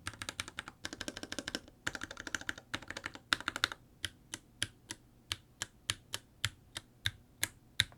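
Mechanical keyboard with lubed Durock POM T1 tactile switches and PBT keycaps being typed on: a quick run of keystrokes for the first half, then slower single keystrokes about three a second.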